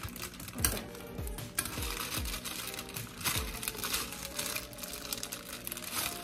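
A plastic cake-mix bag crinkling as it is pulled and torn open by hand, over background music with deep bass hits.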